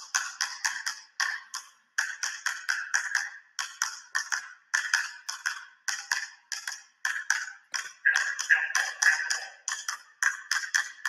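Two basketballs dribbled rapidly on a hardwood gym floor: quick runs of sharp bounces, several a second, with short breaks between the runs.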